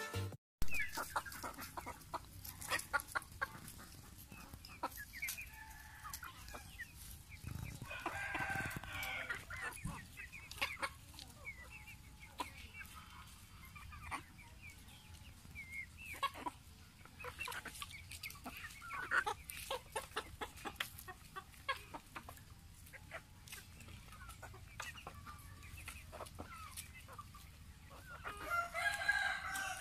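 A mixed flock of backyard chickens, hens and roosters, clucking softly with many scattered short calls. Two longer calls stand out, about eight seconds in and near the end.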